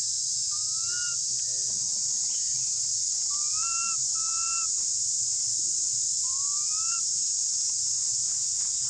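Infant long-tailed macaque giving four short, rising, whistle-like coo calls, each about half a second, calling for its mother. A steady high-pitched insect drone runs underneath throughout and is the loudest sound.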